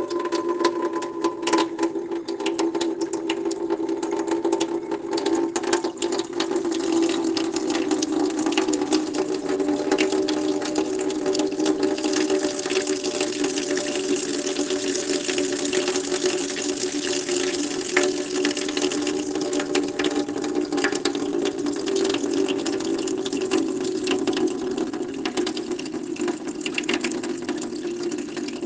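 Water running steadily from a tap and splashing into a basin, a constant rushing hiss with a low hollow ring and scattered splashes.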